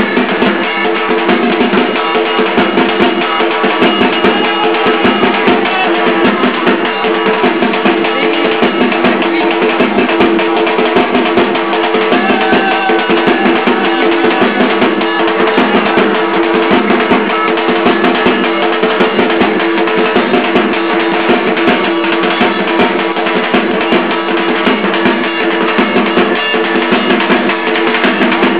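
Dhak drums, the large stick-beaten barrel drums of Durga Puja, beaten loud and unbroken in a dense rhythm.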